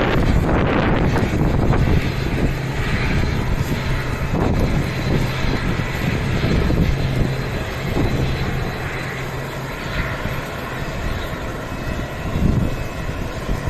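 Turboprop airliner (ATR 42-600 'Mizoka') running under power: a loud low engine and propeller rumble with a steady low hum that slowly fades and drops away about ten seconds in.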